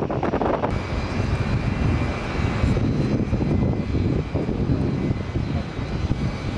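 Airbus A330 twin jet engines running on the runway: a loud low rumble with a steady high whine over it. About the first second is wind noise on the microphone.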